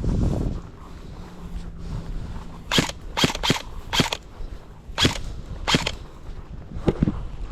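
Airsoft gun firing about seven single shots at irregular intervals, sharp snapping cracks over roughly four seconds, the last one fainter. A brief low rumble comes right at the start.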